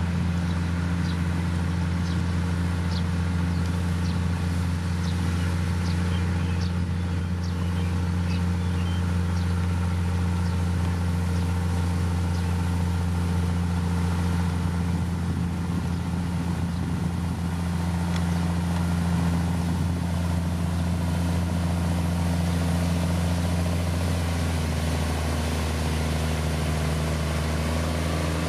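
Diesel engine of a heavy road-building machine running steadily at an even, low speed, its note shifting slightly about three-quarters of the way through. A faint high ticking is heard in the first several seconds.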